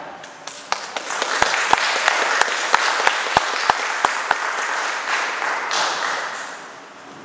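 Audience applauding at the end of a musical number, with one person's loud claps close by standing out at about three a second for the first four seconds. The applause dies away near the end.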